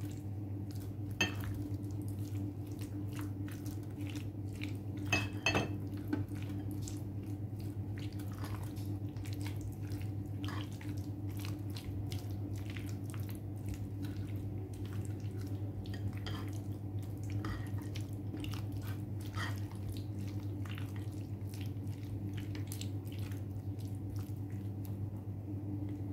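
Silicone spatula folding a mayonnaise-coated potato salad in a glass bowl: soft wet squishing with many light clicks of the spatula against the glass, a couple of them louder, about a second in and around five seconds in. A steady low hum runs underneath.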